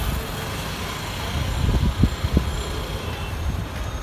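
Low rumble of road travel through city street traffic, with a few short low thumps about two seconds in.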